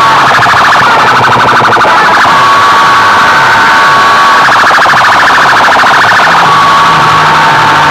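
Siren-style electronic alarm tone blasted at full volume through a stack of horn loudspeakers. A held high tone alternates about every two seconds with a fast pulsing warble, over a low sweep that falls again and again.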